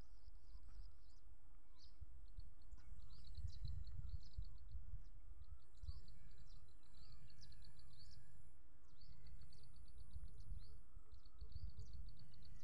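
Background rumble with birds chirping: short, fast high trills repeating every second or so over a low steady rumble.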